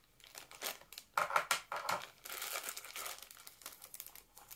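Thin clear plastic bag crinkling in irregular crackles as red multimeter test leads are pulled out of it.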